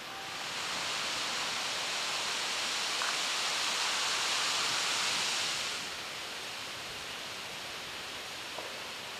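Outdoor background hiss with no pitch that swells for about five seconds, then falls back to a steady lower level.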